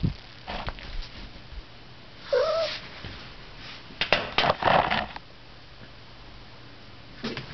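A domestic cat gives one short meow about two seconds in. A little later comes a quick cluster of sharp taps and scuffs.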